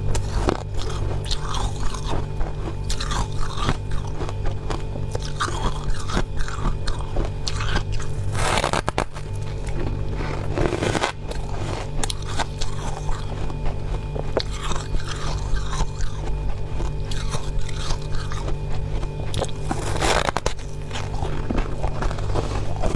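Close-up chewing and crunching of powdery freezer frost: a dense run of small crunches, with louder crunches about nine, eleven and twenty seconds in. A steady low hum runs underneath.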